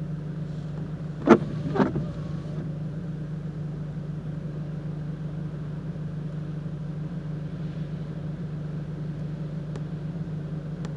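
Car engine idling, a steady low hum heard from inside the car, with two sharp knocks about half a second apart a little over a second in.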